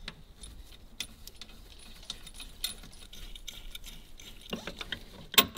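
Scattered light metallic clicks and clinks of a hand wrench working a bolt, with a sharper click near the end.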